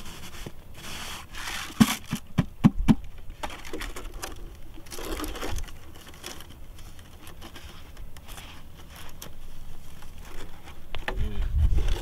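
Thin plastic bottles being handled, knocking and crinkling, with a quick run of sharp knocks about two seconds in, and scraping and rustling in between.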